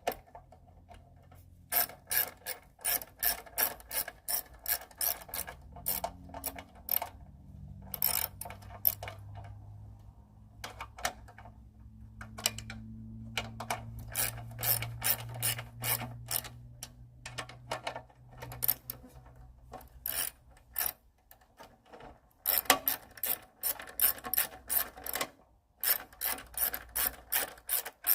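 Ratchet clicking in several quick runs as screws on a lawnmower carburetor are turned down.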